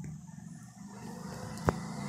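Steel ladle stirring and scraping thick tomato masala in a steel kadhai, with a frying hiss that builds from about a second in. One sharp clink of the ladle against the pan comes near the end.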